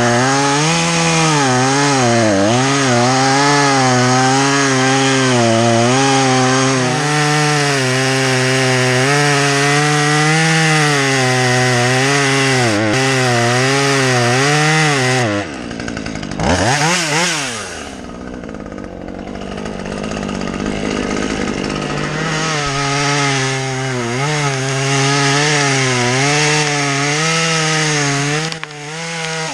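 Chainsaw running under load while cutting wood, its engine note wavering as the bar works through the cut. About halfway through it drops off and revs briefly, runs quieter for a few seconds, then settles back into cutting.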